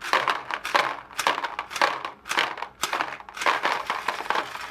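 Paintball marker firing a rapid, irregular string of compressed-air shots, about ten in a few seconds, while a Dye Rotor loader feeds it 3D-printed TPU paintballs.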